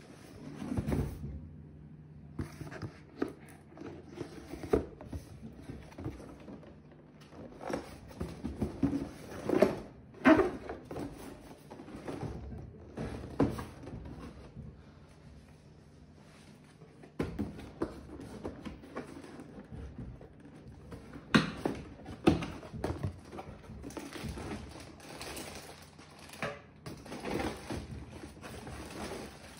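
Plastic model kit parts being handled and fitted: irregular small clicks, knocks and rustles of hard plastic, with a few sharper snaps.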